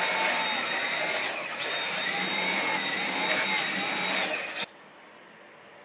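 Handheld vacuum cleaner running with a steady motor whine, switched off about four and a half seconds in.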